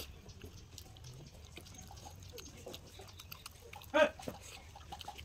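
Soft eating sounds: fingers working rice on a steel plate, and chewing. About four seconds in, one short, loud call from a domestic animal.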